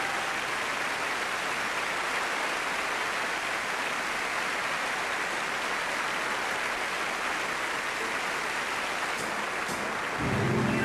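Large audience applauding steadily; music starts up near the end.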